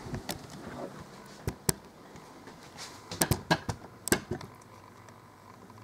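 Irregular sharp clicks and knocks: a few scattered single ones, then a quick cluster of five or six about three to four seconds in, over a faint steady background.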